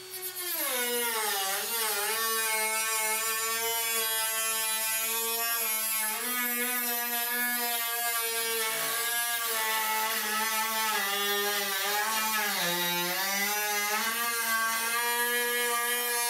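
Handheld rotary tool with a cutting bit trimming the edge of a fiberglass hood vent: a steady whine whose pitch drops as the bit bites in, about half a second in, then sags and recovers several times as it cuts.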